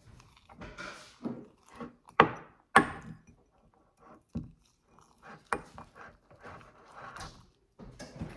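Utensil knocking and scraping against a bowl as slime is stirred: irregular knocks with two sharp loud ones a little over two seconds in and a few softer ones later.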